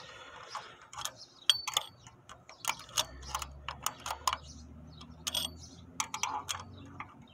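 Irregular light metallic clicks and taps as a metal hand tool works a replacement rocker arm into place at the camshaft of an open 3.6 L Pentastar V6 cylinder head. A faint low hum runs under the clicks in the middle.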